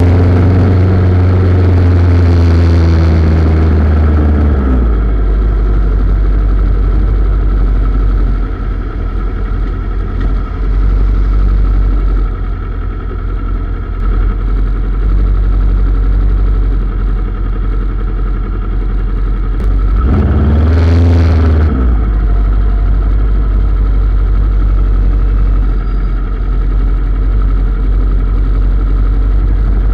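Motorcycle engine running under way in city traffic, with a steady low rumble and road and wind noise. It revs up in the first few seconds and again briefly about twenty seconds in.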